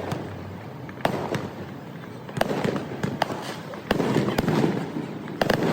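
Aerial fireworks going off: a string of sharp bangs at irregular intervals, about a dozen in under six seconds, with crackling and rumble between them.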